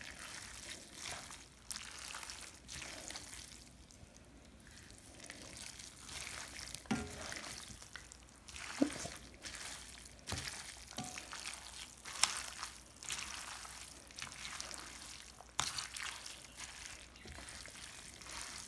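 Tongs tossing stir-fried noodles and vegetables in an enameled cast-iron braiser: wet stirring with irregular clicks and knocks of the tongs against the pan.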